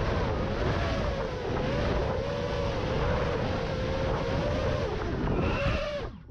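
Wizard FPV quadcopter's motors whining, heard from its onboard camera with wind rushing over the microphone; the pitch wavers up and down with the throttle, then the sound cuts off sharply about six seconds in as the quad sets down near the ground.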